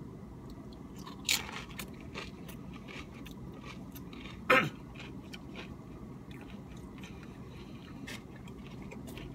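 Someone biting into a Tostitos tortilla chip loaded with dip and chewing it. There is a sharp crunch about a second in and another about four and a half seconds in, with small crackles of chewing between.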